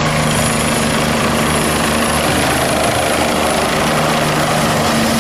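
Eurocopter EC145 twin-turbine helicopter hovering low. Its turbines whine steadily under the main rotor's regular low beat, and the sound cuts off suddenly at the end.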